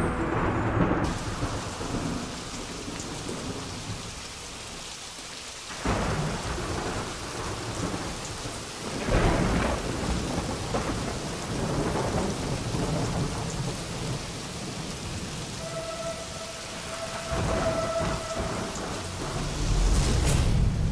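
Steady rain with rolls of thunder, swelling deeply about six and nine seconds in and again near the end. A held tone sounds over it for a few seconds from about the sixteen-second mark.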